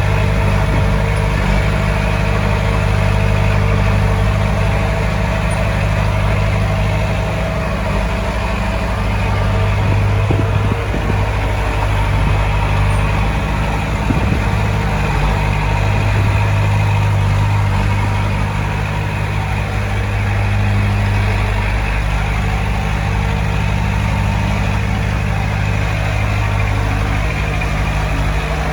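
Heavy diesel engine of earthmoving equipment running steadily at a low, even speed, its pitch shifting slightly now and then, with a few faint knocks near the middle.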